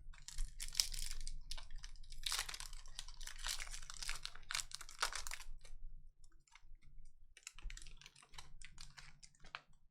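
Trading cards handled in the hands: quick rustling, sliding and flicking of card stock, thickest from about two to five and a half seconds in, then thinning to a few light clicks.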